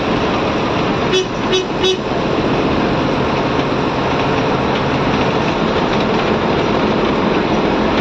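Steady engine and road noise inside the cabin of a moving bus, with three quick horn toots about a second in.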